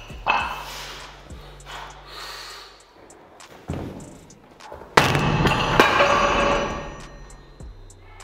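Heavy breathing and strained exhales of a lifter pressing a 120 kg strongman dumbbell overhead, then a sudden loud thud about five seconds in as the dumbbell comes down, followed by loud panting.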